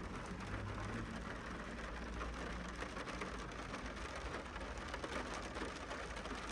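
Rain falling steadily in a downpour, with a low rumble underneath.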